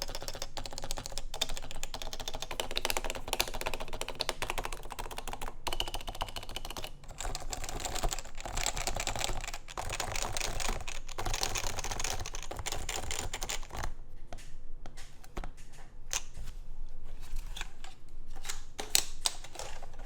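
Fast, continuous typing on a Topre keyboard: Realforce 88UK internals with electrostatic capacitive Topre switches lubed with 205g0, Realforce keycaps and a stainless steel plate, in a prototype custom case. About two-thirds of the way through, the strokes thin out to scattered single keypresses.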